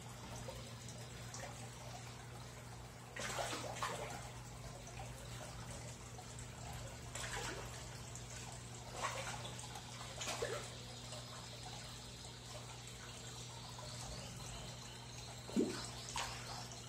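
Water running and trickling in an aquaponics fish tank over a steady low hum. Several short splashes break the surface, at about 3, 7, 9, 10 and 15 seconds in, as tambatinga fish take feed pellets.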